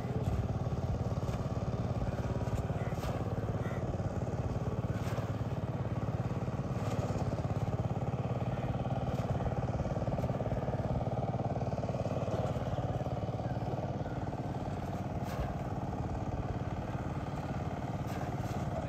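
A small engine running steadily, a low even hum with no change in speed.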